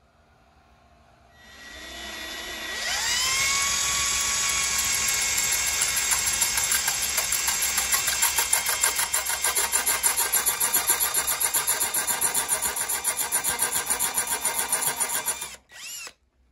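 Electric impact drill starting up, its motor whine rising to full speed, then running with a fast, even pulsing as it works in hammer mode. It stops suddenly near the end, with one short burst just after.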